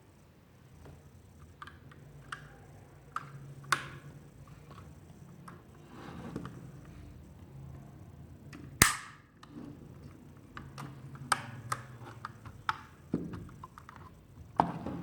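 Irregular handling sounds: scattered clicks and knocks, with one sharp snap about nine seconds in and a few louder knocks near the end.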